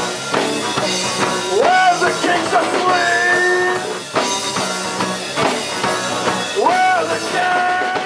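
Live rock band playing: drum kit, bass guitar and acoustic-electric guitar over a steady beat, with a melody line that slides up into long held notes twice.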